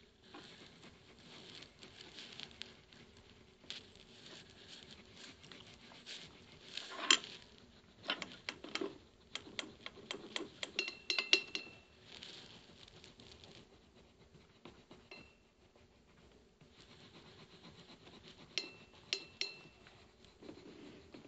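Coloured pencil scratching on sketchbook paper in quick back-and-forth shading strokes, with clusters of sharp clicks and taps, the loudest about seven seconds in.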